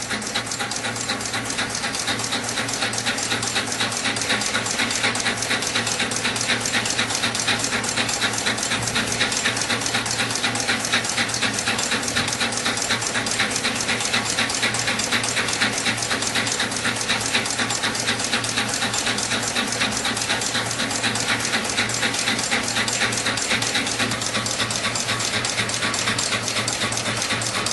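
Rapid, continuous clicking of a Panasonic Toughbook SX2 laptop keyboard being typed on, with a steady low hum underneath.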